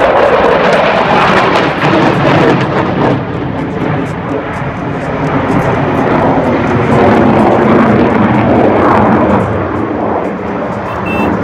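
Fighter jet flying aerobatics overhead: loud jet engine noise that swells and fades a little as the aircraft manoeuvres.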